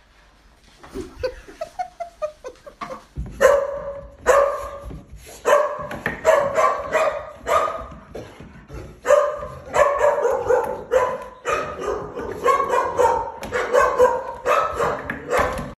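Large dog barking over and over in a rapid, excited string, starting about three seconds in.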